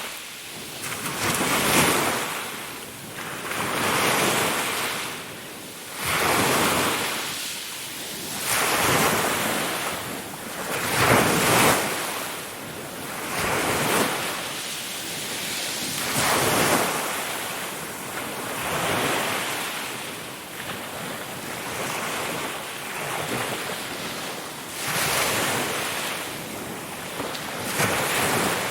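Ocean waves washing onto a shore, one swell of surf breaking and running back about every two seconds, with a steady hiss of wind.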